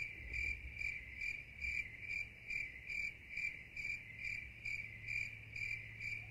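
Cricket chirping: a steady run of short, evenly spaced chirps, about two to three a second, over a faint low hum. It starts and stops abruptly with the cuts in the music, like the comic 'crickets' silence sound effect.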